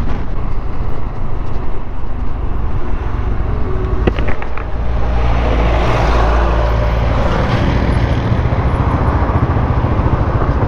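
Yamaha NMAX scooter under way: a steady rush of its single-cylinder engine, tyres and air over the microphone. There are a few short clicks about four seconds in, and the rush grows a little louder and brighter from about five seconds.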